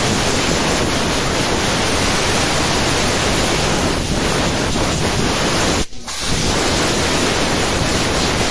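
Compressed-air blow gun blasting through a car radiator's fins to clear packed dirt: a loud, steady hiss that cuts out briefly about six seconds in and then starts again.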